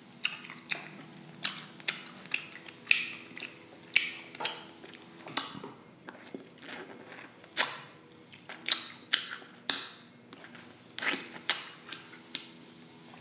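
Close-miked mouth sounds of eating glazed pork ribs: wet lip smacks, sucking and chewing as meat is pulled off the bone, in irregular sharp clicks a few times a second.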